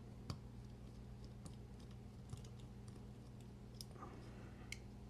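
A few faint, sharp clicks from a small Divo Nip folding knife being handled after its hardware swap, over a low steady hum.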